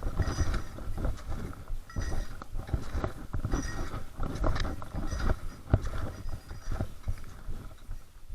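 Footsteps of a hiker walking steadily, about two steps a second, with a faint high ringing at every other step.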